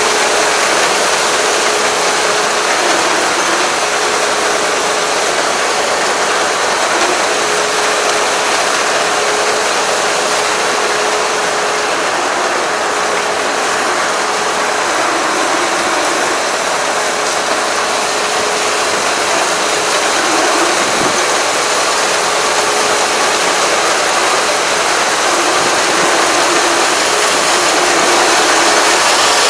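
Four-row rice combine harvester running steadily under load as it cuts and threshes rice: a continuous dense mechanical rattle and hum with a faint steady whine that comes and goes.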